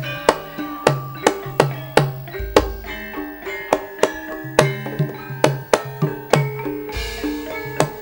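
Javanese gamelan music: kendang hand-drum strokes and mallet-struck bronze saron keys, about two strokes a second, each leaving ringing metallic tones. Two deep low booms come a few seconds apart.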